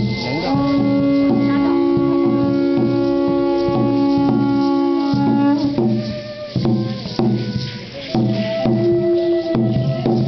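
Aztec ceremonial dance music: horns, typical of conch-shell trumpets, sound one long steady note on two pitches together for about five seconds, starting half a second in. Under them runs a steady drum beat and the shake of rattles. A shorter horn note comes back near the end.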